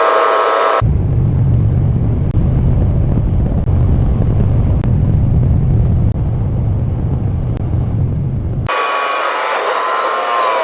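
Strong wind buffeting the microphone with a deep rumble. It comes between two stretches of a steady, whistling whine, one until about a second in and one from near the end, where the pitch bends downward.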